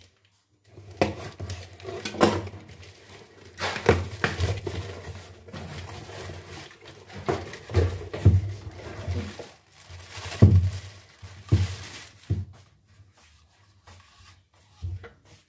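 Unboxing: a cardboard box handled and opened and a speaker driver pulled from a crinkling plastic bag, with rustling and irregular knocks and thumps. It goes much quieter about twelve seconds in.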